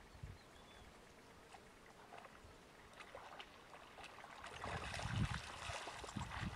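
Spotted hyenas wading in a shallow pool: faint drips and small splashes at first, then louder sloshing and splashing from about four and a half seconds in as they start to walk through the water.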